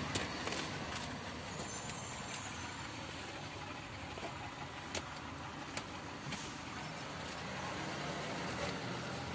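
Steady noise inside a car's cabin, a low rumble with a hiss over it, with a few light clicks and knocks.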